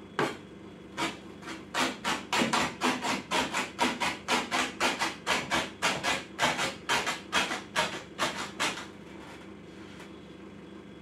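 Small hatchet chopping cabbage leaves finely on a wooden cutting board: a quick, even run of chops, about three a second, that stops a little over two-thirds of the way through.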